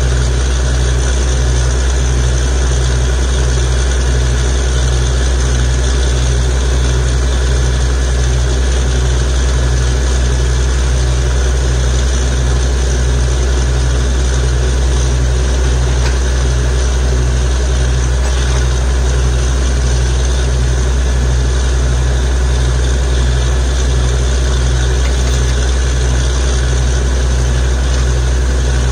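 Truck-mounted borewell drilling rig running steadily while drilling, a heavy engine drone with a regular low pulsing throughout.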